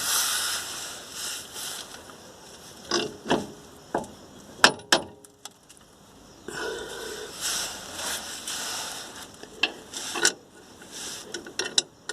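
Bolts, nuts and hand tools being handled and fitted under a truck: scattered sharp metal clicks and clinks, a cluster of them about three to five seconds in and more near the end, over rustling and scraping.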